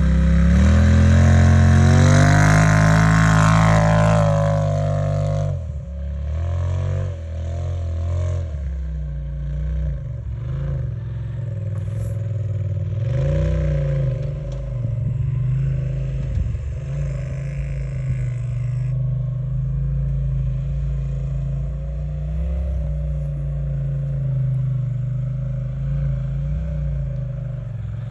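Polaris RZR Pro XP side-by-side's 925 cc twin-cylinder engine breathing through an EVO Captain's Choice exhaust: revving up hard and accelerating for the first five seconds, then suddenly quieter and running on with repeated rises and falls in revs.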